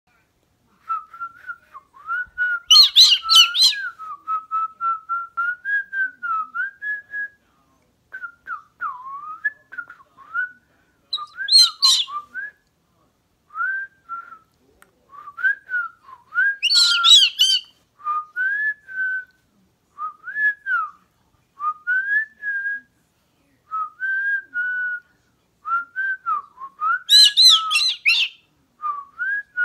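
A person whistling a tune in short gliding notes while a galah (rose-breasted cockatoo) joins in with four short, harsh, loud calls spread through the tune.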